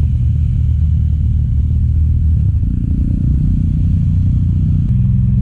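Vehicle engine running steadily at low revs, close and loud; its pitch rises a little about halfway through and shifts suddenly near the end.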